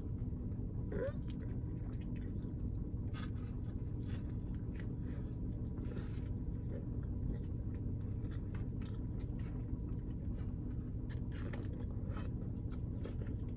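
A person chewing and biting food, with small crunches and mouth clicks scattered irregularly, over a steady low hum.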